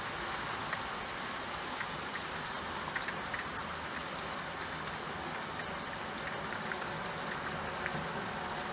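Steady rain falling, with a few separate drops ticking now and then.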